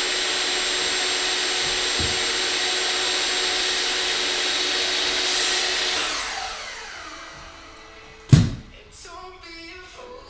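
A small electric motor machine runs with a steady whooshing, is switched off about six seconds in and winds down with a falling pitch, then a single loud thump sounds near the end.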